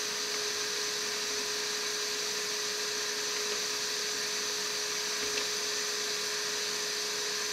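Hakko FR-810B hot air rework station running, its blower giving a steady rush of air with a constant whine, and a faint click or two from its front-panel buttons.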